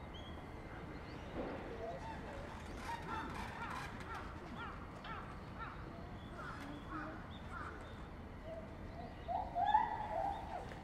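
Animal calls: a run of short, falling, chirp-like calls several times a second, then a few louder, lower calls near the end.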